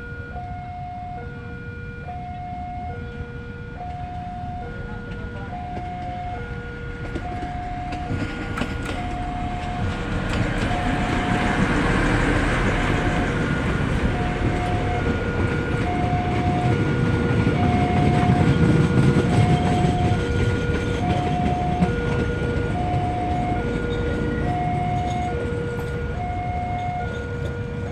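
A train rolls past with a rumble and wheel noise that grows louder, peaks a little past halfway and then eases, while a level-crossing warning alarm beeps steadily, about once a second.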